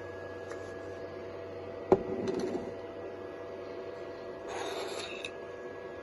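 Steady hum of a 3D printer's fans, with a sharp knock about two seconds in followed by brief rubbing, and a short rasping scrape just before the end.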